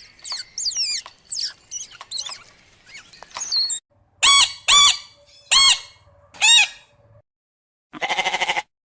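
Bird calls: a flurry of high, falling chirps, then four loud arched squawks, then one short buzzy call near the end.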